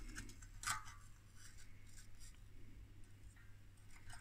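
Faint handling of small metal parts: a light click about two-thirds of a second in, then a few softer clicks and scrapes as a small circuit board is worked loose from its aluminium housing, over a low steady hum.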